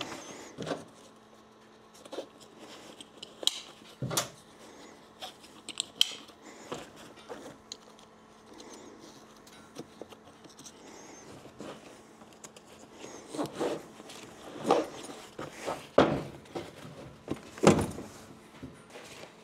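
Fabric gear bags and hand tools being handled: scattered knocks, clinks and rustles, with a few louder thumps in the second half.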